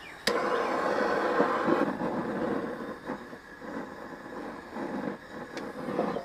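Handheld gas-torch charcoal starter lit under a chimney of briquettes: an ignition click about a quarter second in, then the hiss of the torch flame, steady for about a second and a half and then uneven, coming and going.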